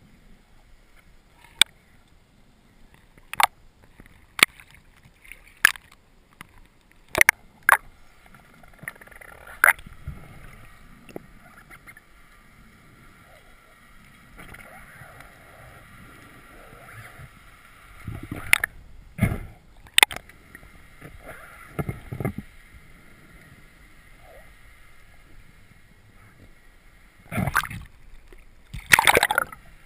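Underwater sound through a dive camera's housing: a string of sharp, separate clicks and knocks, with a faint steady whine through the middle stretch. Near the end come bursts of water splashing and rushing as the camera comes up toward the surface.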